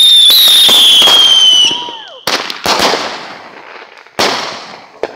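Consumer firework going off: a loud, shrill whistle slowly falling in pitch for about two seconds, followed by three sharp bangs.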